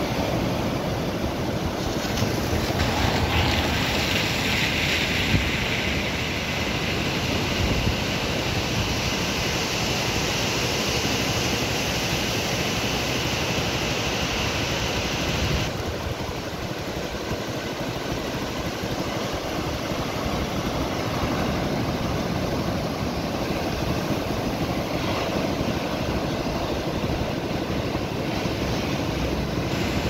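Rough surf breaking and washing up a sand-and-pebble shore, with wind on the microphone: a steady roar and hiss that eases a little about halfway through.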